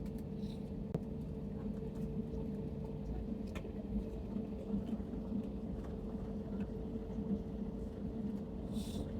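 Airliner cabin noise after landing: a steady engine hum with a constant drone, and a few faint clicks.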